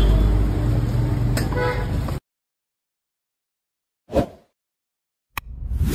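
Busy roadside traffic noise with a low rumble and a vehicle horn sounding briefly, cut off suddenly. After a short silence come two end-card sound effects: a brief hit, then a longer swell.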